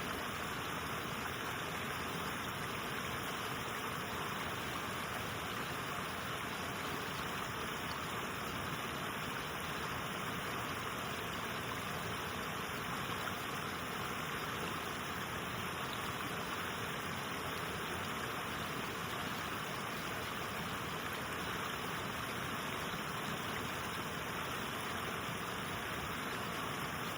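Elk River water rushing steadily at a waterfall, an even, unbroken roar of falling and flowing water.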